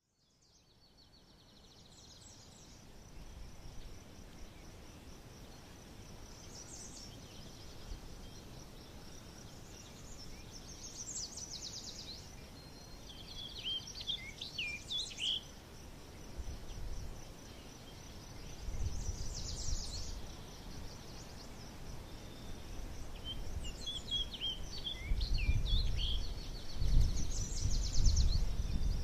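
Forest ambience that fades in: a steady, high, pulsing insect trill, with scattered bird chirps and whistles in two bursts near the middle and later on. Low rumbles come in towards the end.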